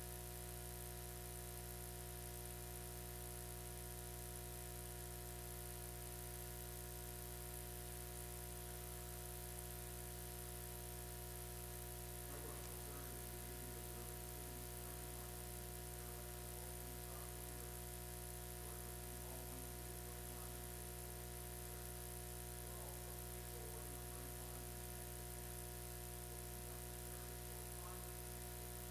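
Steady electrical hum and hiss from the recording feed, made of several constant tones that never change, with faint, indistinct voices underneath from about twelve seconds in.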